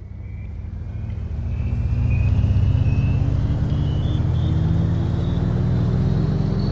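A motor hum that fades in from silence, with a high whine climbing slowly in pitch throughout.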